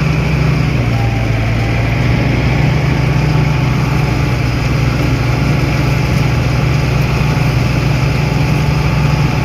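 Tractor engine of a Novo 605 CRDI driving a Balkar B 525 rice harvester, running in a loud, steady drone that drops slightly in pitch about a second in.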